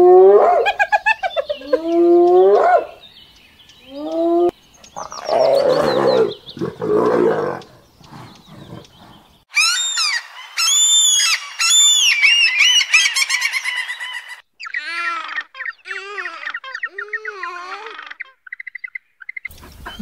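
Spotted hyenas calling: a series of rising whoops, then a rough, harsh stretch. About halfway through, high repeated bird-like calls take over, followed by lower wavering calls.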